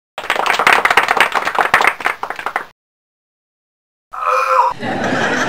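Clapping from many hands at once, like applause, for about two and a half seconds, cutting off abruptly. After a second of silence, a high-pitched voice starts about four seconds in.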